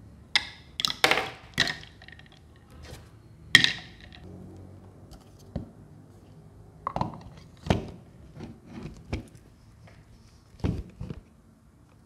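Ice cubes dropped into a clear water tank, clinking sharply several times in the first few seconds. Later come duller plastic knocks and thuds as the humidifier's top is fitted onto the tank and set down.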